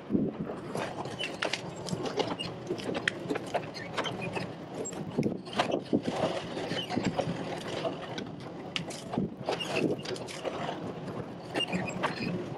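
Sany SY50U mini excavator working in brush: engine running steadily under many sharp, irregular cracks and snaps of branches and roots as the bucket tears out a stump and brush.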